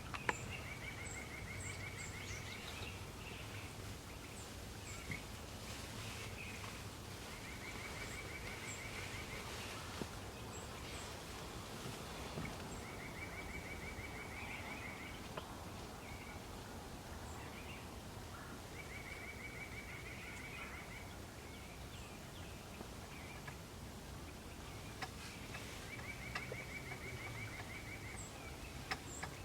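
Quiet woodland ambience: a bird's rapid trill, each about two seconds long, repeats five times, a few seconds apart, over a low steady background rumble, with a few faint high chirps.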